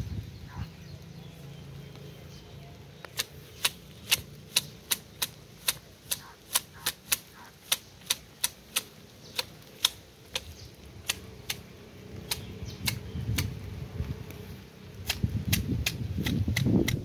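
Manual hedge shears snipping Ficus topiary foliage, the blades closing with sharp clicks about twice a second as the bush is clipped into shape. Louder low rustling sits under the last couple of seconds.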